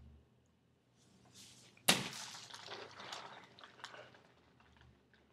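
A single sharp smack about two seconds in, followed by about two seconds of crackling rustle with a few small clicks.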